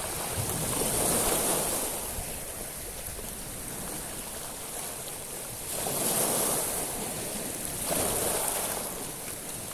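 Sea waves washing up a beach of small stones (shingle), with three surges: about a second in, near six seconds and near eight seconds.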